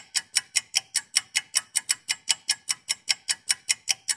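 Clock-like ticking sound effect: sharp, evenly spaced ticks, about six a second, at a steady level.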